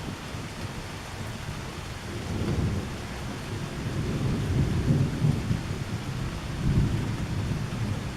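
Thunder rumbling through steady rain during a strong thunderstorm; the low rumble swells from about two seconds in and peaks twice, around the middle and near the end.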